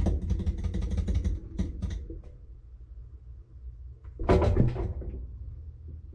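Washing machine running its load-sensing cycle: a low steady motor rumble as the drum turns, with a run of clattering knocks in the first two seconds and a loud clunk about four seconds in.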